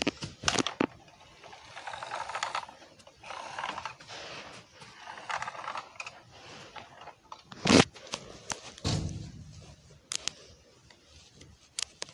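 Handling noise on the recording device's microphone: a string of sharp clicks and knocks with several rubbing, scraping passages. The loudest knock comes about eight seconds in.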